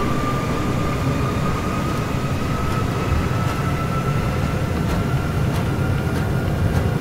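Airbus A330 in its takeoff roll, heard from the cockpit: a steady low rumble of the engines and the wheels on the runway, with a thin engine whine rising slowly in pitch as thrust comes up toward takeoff power.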